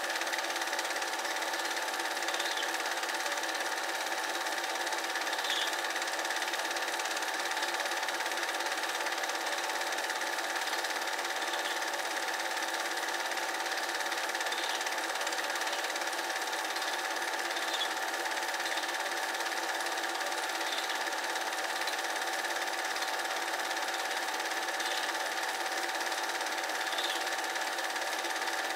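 Cine film projector running: a steady mechanical whirr with a constant hum, and faint ticks every few seconds.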